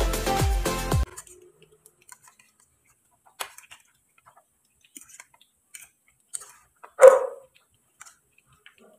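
Electronic dance music with a steady beat cuts off about a second in. Then come a few faint clicks of a fork against a ceramic bowl as tikoy slices are turned in beaten egg, and a single short dog bark about seven seconds in.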